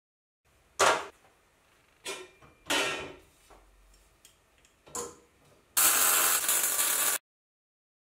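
Aluminium bicycle rim knocking against a steel frame and its rollers, four separate knocks, as it is set in place. Near the end there is about a second and a half of loud, harsh scraping that stops abruptly.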